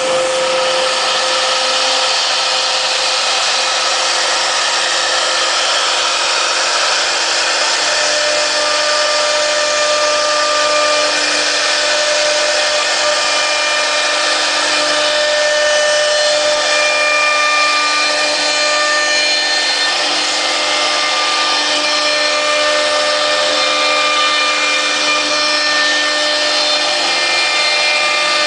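3-axis CNC wood router cutting wood: a steady spindle whine with several held tones over the hiss of the bit in the wood. It keeps an even level throughout, with a new higher tone joining about eight seconds in.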